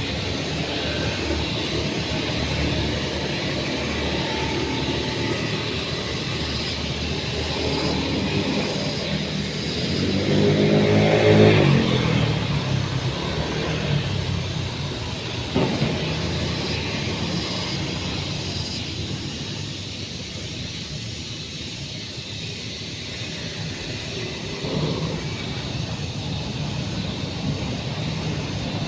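An engine running steadily, growing louder and more tonal for a couple of seconds about ten seconds in, with a single sharp knock a few seconds later.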